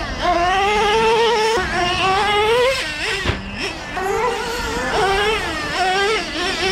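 Traxxas Revo 3.3 nitro RC monster truck's small two-stroke glow engine running at a high-pitched buzz, its note rising and falling constantly with the throttle as the truck drives, with a brief drop a little past three seconds in. The engine is new and still being run in.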